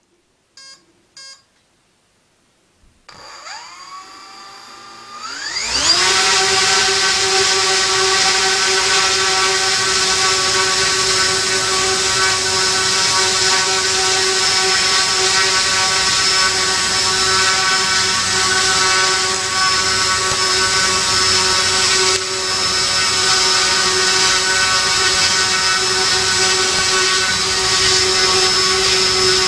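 Two short beeps, then a hexTronik DT700 700kv brushless outrunner motor turning two stacked 11x4.7 slow-fly propellers (four blades) starts about three seconds in. Its whine rises in pitch as it spins up, and from about six seconds it runs steadily with a loud whir and a high whine.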